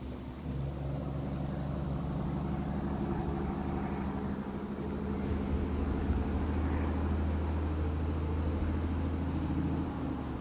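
Heavy truck diesel engine idling steadily with a low, even hum: the Cummins X15 inline-six of a Kenworth W900L tractor.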